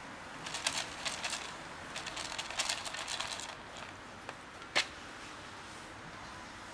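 Dry cat kibble rattling in a plastic tray in two spells of short clicks, then one sharp click about five seconds in as the tray is set down on concrete paving.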